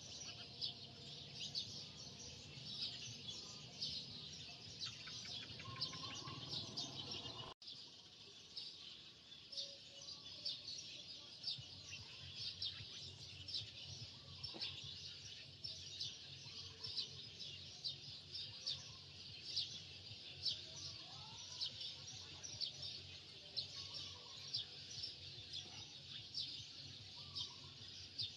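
Many small birds chirping continuously in rapid, high, overlapping chirps, with occasional short whistled and gliding notes. A low steady hum runs underneath.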